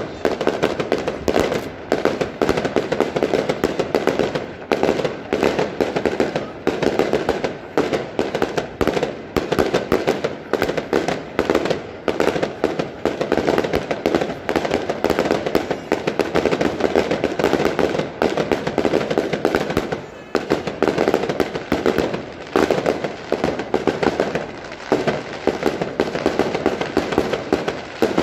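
Daytime fireworks: a continuous rapid barrage of aerial firecracker bangs, many per second, easing briefly a couple of times before picking up again.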